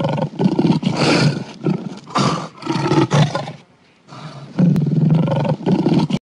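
Big cat roaring sound effect: a string of deep roars and growls, a short pause about four seconds in, then more roaring that cuts off suddenly near the end.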